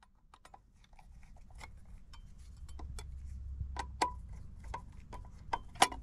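A screwdriver clicking and scraping against a steel electrical junction box: a run of irregular light metallic ticks, with the loudest clack near the end.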